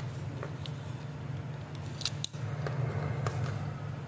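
Small hard plastic clicks as an Audi key fob's shell is handled and snapped back together, with a cluster of two or three sharp clicks about two seconds in. A steady low hum runs behind them.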